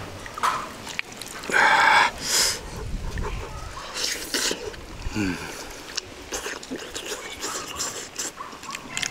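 Crisp-skinned roast whole chicken being torn apart by hand and bitten into. The loudest crackle comes about a second and a half in, followed by chewing and smaller crunches.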